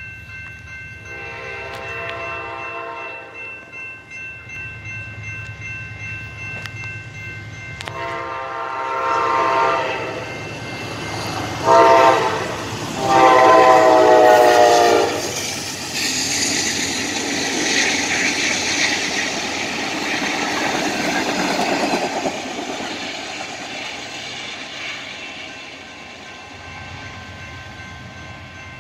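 Amtrak diesel locomotive horn sounding the grade-crossing signal: two long blasts, a short one and a final long one, the last two the loudest. The crossing bell rings steadily around them, and the train then passes with a rush of engine and wheel noise that fades away.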